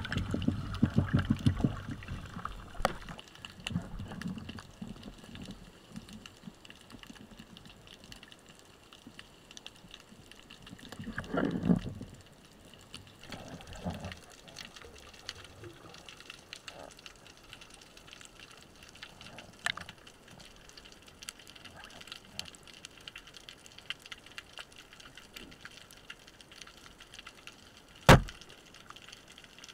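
Underwater sound heard through a camera housing: bubbling and gurgling of air bubbles in the first two seconds, another short gurgle about halfway through, then faint crackling ticks, with one sharp loud click near the end.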